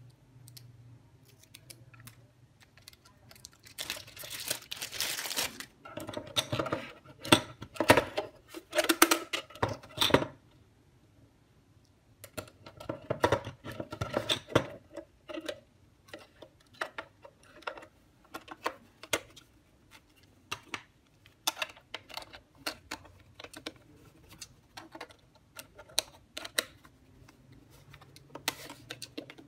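Handling noise: a small plastic bag crinkling and being torn open, then a run of small plastic clicks and taps as a 9-volt battery is fitted into the back case of a DT9205A digital multimeter.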